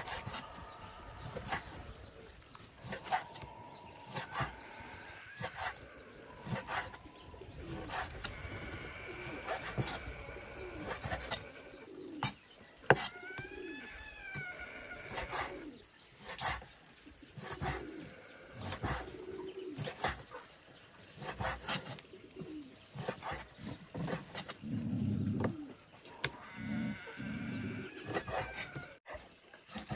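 Pigeons cooing and birds chirping, with low coos near the end and one rising-then-falling call near the middle. Repeated short knocks or scrapes sound throughout.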